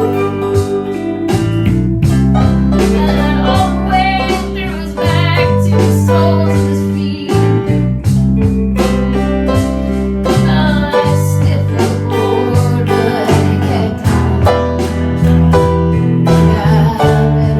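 A song with singing over guitar, a steady bass line and a regular drum beat.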